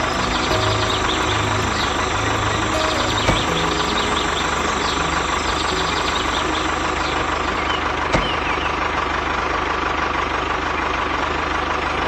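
A small motor of a DIY miniature construction machine running steadily with a constant whine and low hum, with faint squeaks and a single click about eight seconds in.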